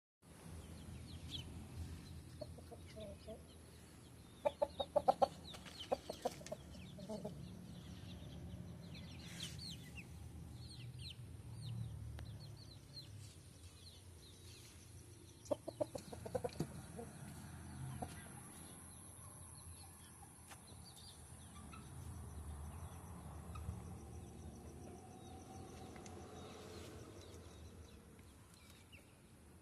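Kampung laying hens clucking, with two runs of quick loud clucks, about five seconds in and again around sixteen seconds, and short high chirps scattered throughout.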